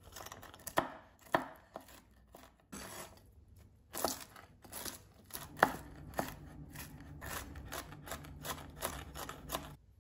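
Chef's knife chopping walnuts on a wooden cutting board: a series of sharp knocks of the blade on the board with the crunch of the nuts, irregular at first, then quicker and more even at about three strokes a second, stopping near the end.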